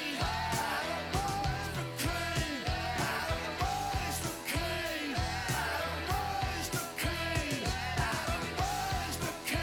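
A song on the soundtrack: a singing voice over instruments with a steady beat.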